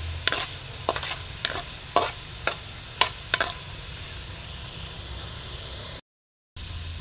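Pork pieces sizzling in a wok while a metal spatula stirs them, scraping and knocking against the pan about twice a second for the first three and a half seconds, then only the steady sizzle. The sound cuts out completely for about half a second near the end.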